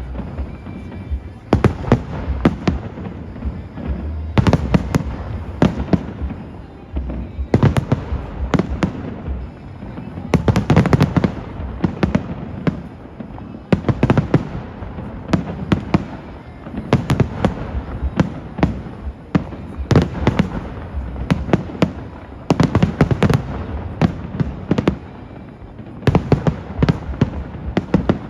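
Fireworks display: clusters of sharp bangs and crackling bursts every few seconds, with short lulls between them.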